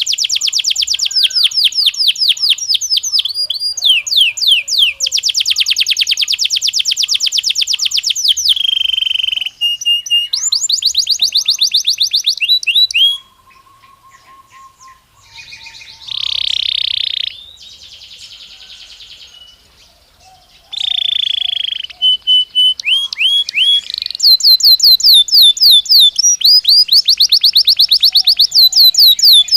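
Belgian canary singing: fast, high trills of rapidly repeated notes, broken in the middle by a quieter pause with a couple of held whistled notes, then loud trilling again.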